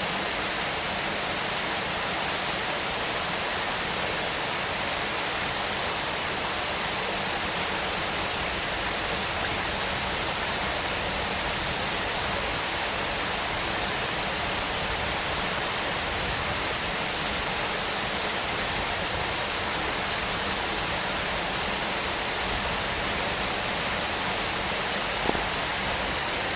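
Waterfall: water falling and splashing in a steady, unbroken rush. A single brief click sounds near the end.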